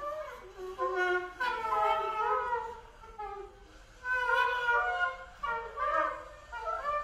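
Contemporary music for string quartet and fixed media: overlapping pitched tones that slide up and down in short phrases, swelling and falling back with brief gaps between them.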